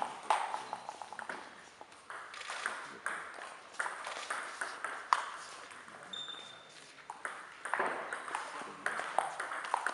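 Table tennis ball clicking off rackets and the table in quick irregular hits during a rally, with a brief high squeak about six seconds in.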